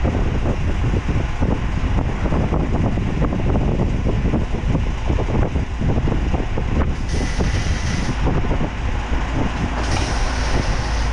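An engine running steadily on a hot rod's bare rolling chassis, a loud low rumble, with two short hissing bursts about seven and ten seconds in.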